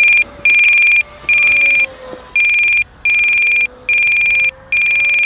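Loud electronic alarm beeping: a steady high tone repeating a little over once a second, each beep about half a second long with short gaps. It is the low-battery warning for the RC glider's drained flight battery.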